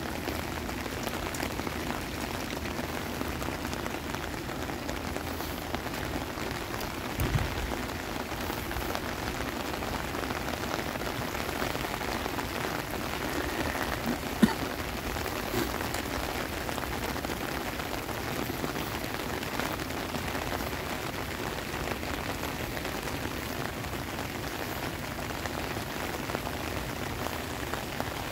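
Heavy rain pouring down steadily on pavement, grass and sand in a rainstorm. A short low thump comes about seven seconds in and a sharp tick about halfway through.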